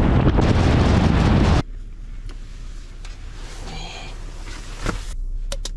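Steady road and wind noise of a vehicle driving at highway speed, cutting off abruptly about a second and a half in. What follows is a much quieter car interior with a low steady hum and a few faint clicks near the end.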